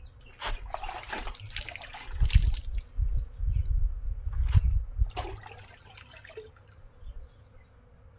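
Water splashing and trickling as a dog is washed, in irregular bursts, with dull low bumps in between.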